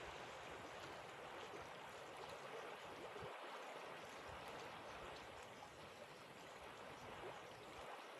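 Faint, steady rush of flowing water, even and unbroken throughout.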